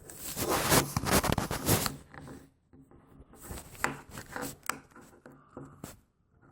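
Handling noise from hands moving things about: rubbing and scraping for about the first two and a half seconds, then scattered light clicks and knocks.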